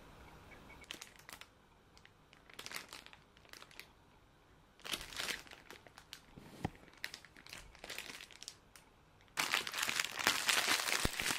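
Clear plastic bakery bag crinkling in short, scattered bursts as it is handled, then loud continuous crinkling for the last couple of seconds as hands pull the bag open.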